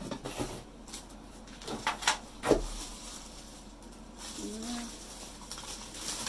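Light knocks and clinks of cookware pots and lids being handled, with a few sharper knocks about two seconds in. A short pitched glide follows about four and a half seconds in.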